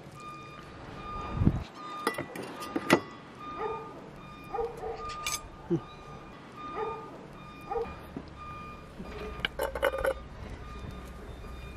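A cat meowing in short, repeated calls about once a second, begging for meat. Sharp knocks of a knife on a wooden cutting board are the loudest sounds early on, and near the end a metal dish clatters as meat is scraped out of it. A faint electronic beeping repeats in the background.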